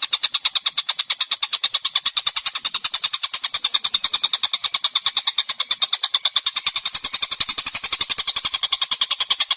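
Bird song recording used as a masteran track: a fast, even string of short high chirps, about ten a second, with no pause.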